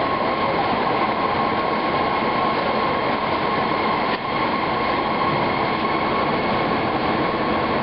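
Rubber-processing factory machinery running: a steady, loud mechanical noise with a constant hum, dipping briefly about four seconds in.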